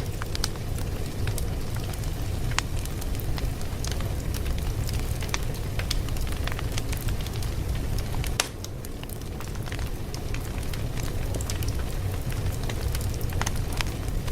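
Fire crackling: a steady low rumble under irregular sharp pops and snaps, with one louder pop a little past halfway.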